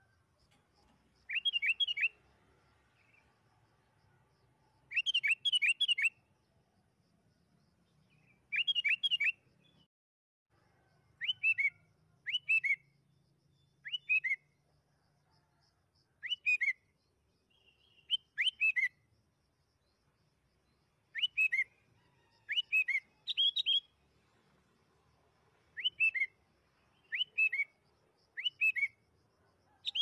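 Sooty-headed bulbul singing: three bursts of three or four quick whistled notes a few seconds apart, then short falling whistled notes every one to two seconds.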